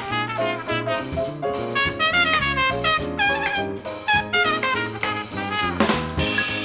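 Big band playing swing jazz, a trumpet solo over the rhythm section, with a crash near the end as the solo finishes.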